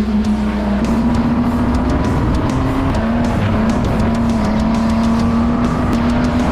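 Race car engines running hard around a speedway track in a loud, continuous drone whose pitch climbs slightly, with music playing alongside.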